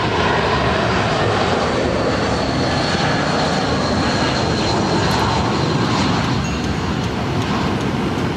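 Airbus A320-family jet airliner on landing approach with its gear down, its twin jet engines passing close as a loud, steady rush of jet noise with a thin high whine through the middle.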